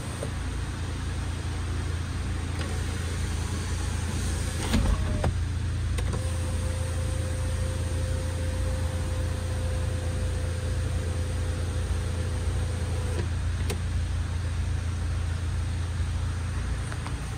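Power panoramic sunroof of a 2013 Hyundai Veloster closing: the glass panel slides shut and seats with a clunk about five seconds in. The sunshade motor then runs with a steady whine for about seven seconds and stops with a click, over a steady low hum.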